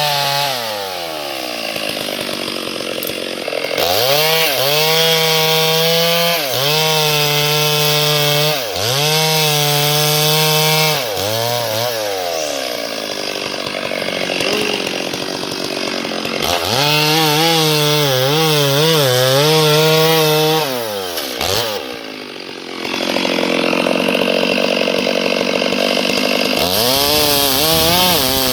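Chainsaw cutting wood, its engine revving up to high speed again and again with a wavering pitch under load, then dropping back to a lower idle between cuts.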